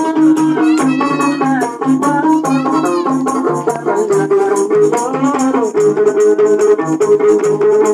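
Gambus lute music with a jingled frame drum (tambourine) shaking out a quick, steady beat, under a melody of held notes that waver and slide in places.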